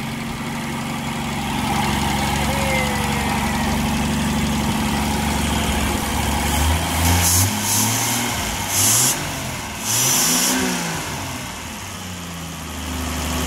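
Toyota Land Cruiser FJ45's carburetted inline-six petrol engine, running again after 25 years laid up. It idles steadily, then from about six seconds in it is blipped on the throttle several times, its pitch rising and falling with each rev. It settles back to idle near the end.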